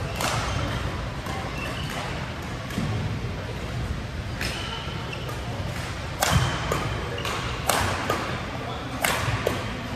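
Badminton rally in men's doubles: rackets striking the shuttlecock with sharp cracks about every second or two.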